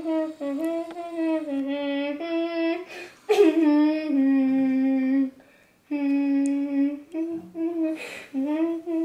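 A high voice humming a wordless tune in clear, held notes, with a short pause a little past halfway.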